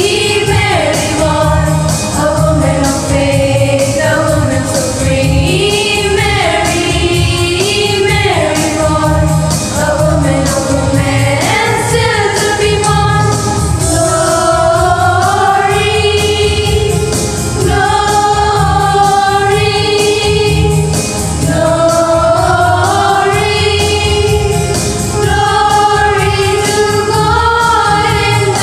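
A choir singing a song with instrumental accompaniment and a steady beat.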